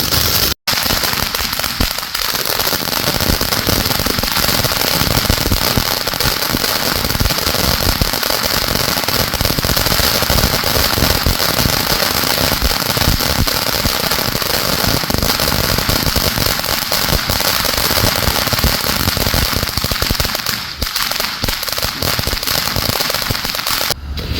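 Fireworks and firecrackers going off in a dense, continuous barrage of rapid, overlapping bangs and crackling. The sound cuts out for an instant about half a second in.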